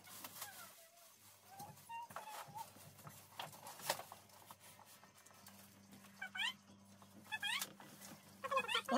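Plastic freezer-lid handle being pressed and fitted into place, with a sharp click about four seconds in. Short rising whining calls from an animal come three times in the second half.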